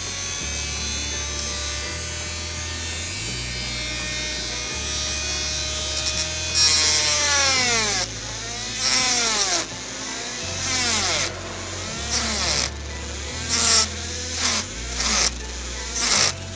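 Small high-speed rotary tool running with a steady whine, then biting into material in short repeated bursts from about six seconds in. Each bite drags its pitch down, then it speeds back up.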